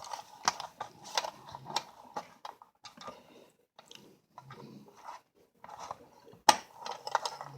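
Irregular small metal clicks and scrapes as the motor of a Marx #6000 toy diesel locomotive is worked into its frame, its tabs being pushed into the frame slots, with one sharp click about six and a half seconds in.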